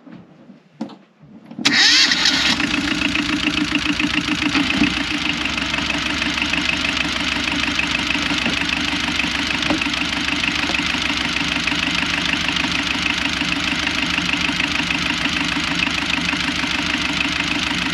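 Small inboard marine diesel engine starting about two seconds in, catching quickly, then idling steadily. The start is a check that cooling seawater flows through its raw-water strainer, freshly cleared of seagrass.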